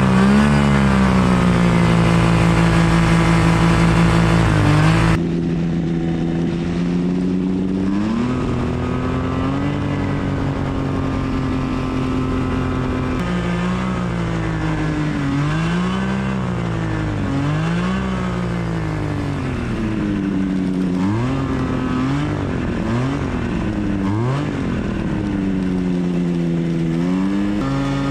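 Quicksilver ultralight's engine and propeller running. About five seconds in the sound abruptly drops in level, and later the engine pitch dips and climbs again and again as the throttle is worked up and down.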